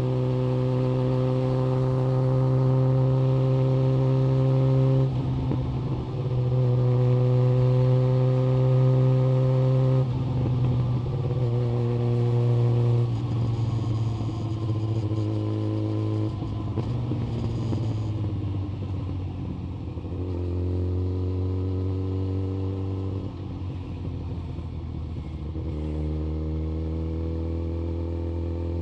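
Yamaha FZ1 Fazer's inline-four engine under way through an SC-Project exhaust. It holds steady notes that creep up in pitch, broken by short drops in throttle every few seconds. The note settles lower and a little quieter in the second half.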